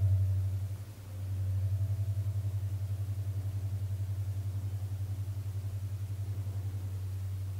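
Low-pitched tuning forks ringing right at the microphone: a steady low hum with a fast, even wavering. It dips about a second in, swells back and rings on, with a faint higher overtone above it.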